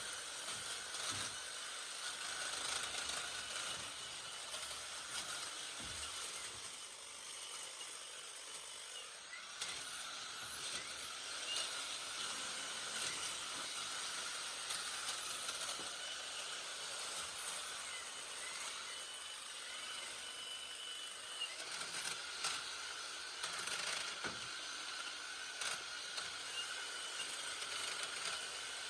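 EGO battery multi-tool with hedge trimmer attachment running with a steady whine, easing off twice, with sharp cracks as the blades cut through thick Photinia stems.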